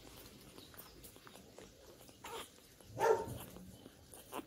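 Newborn Labrador puppy whimpering while nursing: a few short cries, the loudest about three seconds in.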